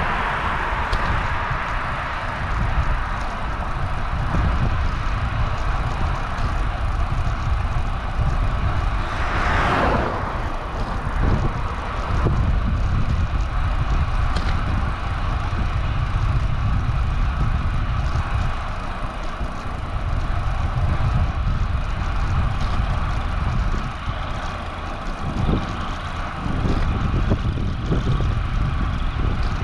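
Wind rumbling on the microphone of a moving bicycle, with road noise; a motor vehicle passes about ten seconds in.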